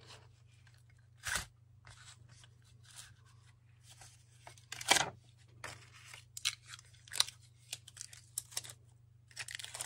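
Sublimation paper being peeled off a freshly pressed coaster with gloved hands: scattered short crackles and rustles, the two loudest about a second in and about five seconds in, then a run of small ticks near the end.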